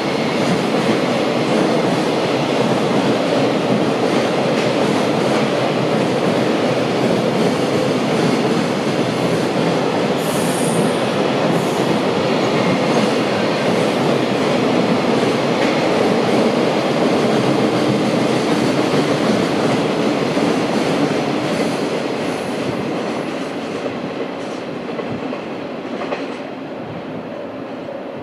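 Long container freight train's wagons rolling past, a steady rumble and clatter of wheels on the rails, with a brief high wheel squeal about ten seconds in. The sound fades over the last several seconds as the train moves away.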